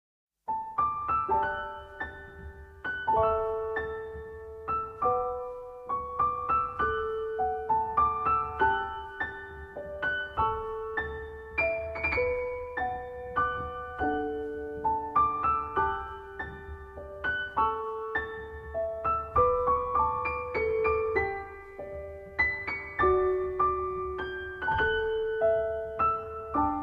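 Background music: a gentle, flowing piano piece of arpeggiated notes over held low notes.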